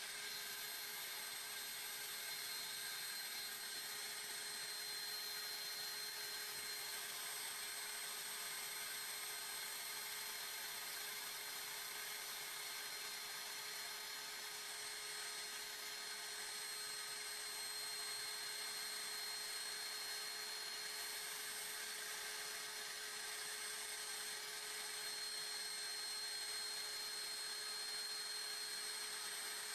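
Small vacuum cleaner running steadily, drawing through a hose into a vacuum-forming mold press: an even whirring hiss with a steady high whine. Its suction is too weak to pull the heated plastic down into the mold, as the owner judges.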